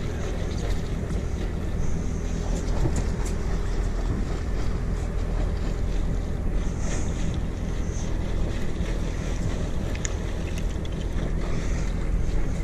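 Steady wind buffeting the microphone over a low, even rumble, with a few faint scattered ticks.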